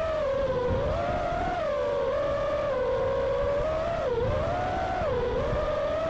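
FPV racing quadcopter's brushless motors whining as it flies, the pitch dipping and climbing again every second or so with the throttle.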